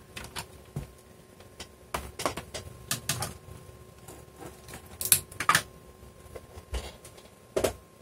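An Ethernet cable's plastic plug being handled and pushed into a small USB-to-Ethernet adapter: an irregular scatter of short plastic clicks and knocks, the sharpest about five seconds in.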